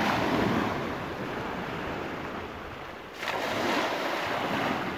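Small waves washing in over a pebble beach, with wind on the microphone. About three seconds in, a sudden rush of splashing as a wet cast net is hauled up out of the shallows with water pouring off it.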